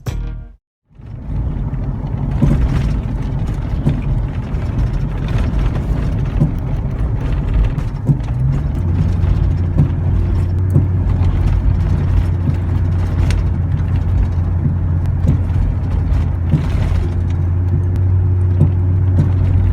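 Chevy Trailblazer driving, with steady road and engine rumble and scattered sharp clunks from the front end over bumps. The clunks come from loose sway bar end links. A steady low hum joins about halfway through.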